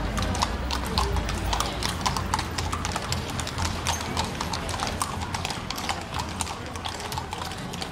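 Several walking horses' hooves clip-clopping on cobblestones, many overlapping irregular strikes.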